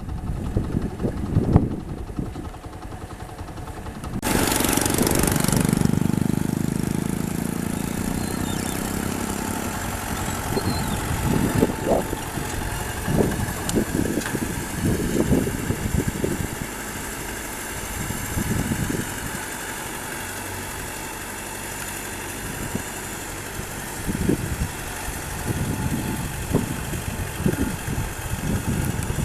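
An engine running, with irregular low thumps throughout. About four seconds in, a loud rushing noise starts suddenly and dies away over the next few seconds.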